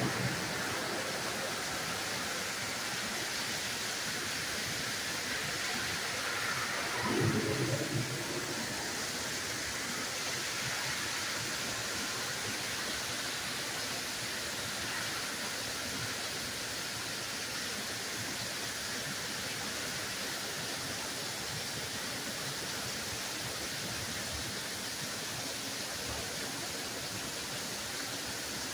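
Torrential rain falling steadily, a dense even hiss. About seven seconds in, a brief low sound stands out over it for about a second.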